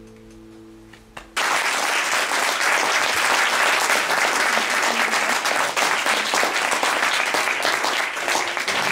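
The last chord of an acoustic guitar rings and fades; about a second and a half in, audience applause breaks out suddenly and continues, full and steady.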